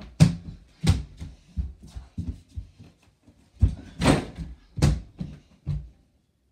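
A mini basketball thumping and knocking against an over-the-door mini hoop, the door and the floor: about a dozen irregular hits, the loudest about four seconds in, when the ball strikes the rim.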